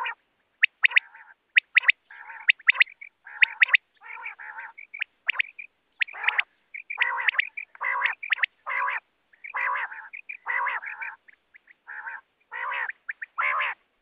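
Quail (batair) calling repeatedly: sharp, high, whistled notes in quick twos and threes, alternating with lower, nasal, quacking notes about half a second long.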